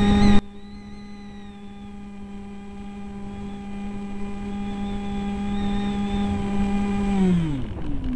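Brushless electric motor (Ray 2835/16) and propeller of an EasyStar RC model plane whining at a steady pitch, picked up by the onboard camera. Loud wind noise on the microphone cuts out about half a second in; near the end the whine drops in pitch and dies away as the motor winds down.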